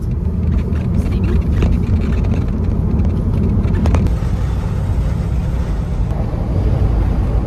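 Steady low rumble of road and engine noise inside the cabin of a moving van.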